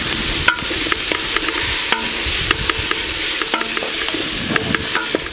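Chopped red onions frying and sizzling in a metal pot on a gas camping burner, stirred with a wooden spoon that scrapes and knocks against the pot in scattered clicks over a steady hiss.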